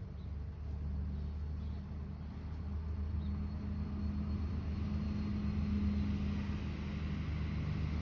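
Steady low mechanical hum of an engine or motor running, holding even with a slight swell in the middle.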